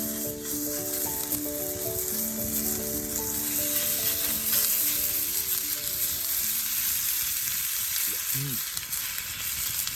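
Meat sizzling and frying in a hot pan over a camp fire, a steady crackling hiss. Background music plays under it for the first seven seconds or so.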